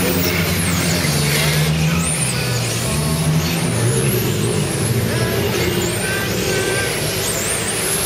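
Radio-controlled electric touring cars racing, their motors whining in rising and falling glides as they accelerate and brake around the track, over a steady low hum.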